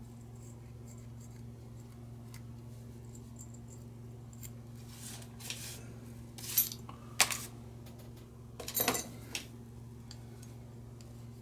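Small metal tools and lighter parts clicking and scraping during hand repair work on a butane lighter, a few sharp clicks about halfway through and a short scrape near the end, over a steady low hum.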